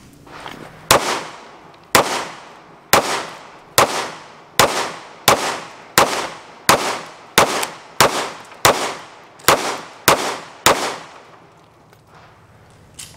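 A string of about fourteen gunshots, each with a short echo. They start about a second apart and speed up to roughly one and a half a second, then stop about three quarters of the way in.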